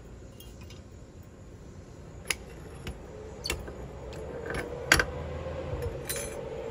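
Metal clinks and knocks as a metal sand-casting flask and its clamps are handled on a concrete bench: a handful of sharp, separate clicks with the loudest about five seconds in, then a short rattle.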